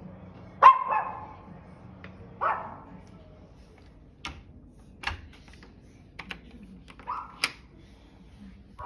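A dog barking in short single barks a few seconds apart, the loudest a quick double bark about a second in, with several sharp clicks between the barks.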